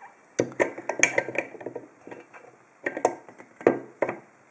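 Metal clicks and clinks from a stainless steel padlock and lock picking tools being handled, in two short clusters: one about half a second in and another around three seconds in.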